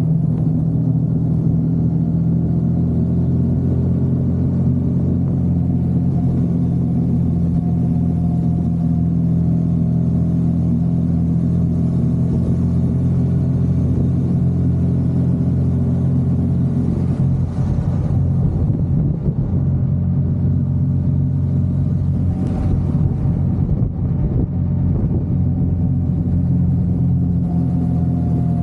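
Vehicle engine running at a steady cruising speed, a constant low drone on the move, with a rougher patch and a few light knocks about two-thirds of the way through.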